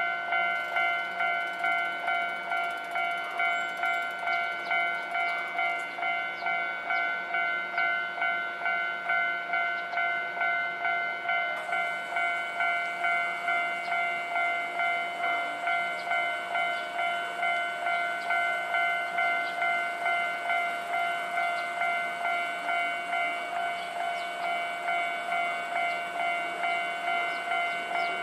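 Japanese railway level-crossing warning bell ringing, a steady ding repeated evenly a little under twice a second, which signals that a train is approaching and the crossing is closed.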